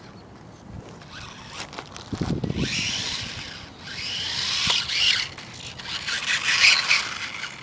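Small electric motor and gears of a 1/24-scale Losi micro RC truck whining, with its tyres hissing on wet pavement; the sound swells and fades several times as the truck drives near and away.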